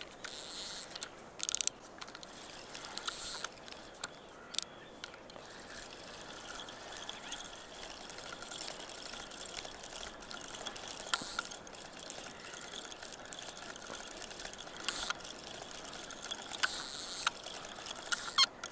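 Fishing reel being cranked steadily with its gears ticking, as a hooked fish is reeled in on a bent rod.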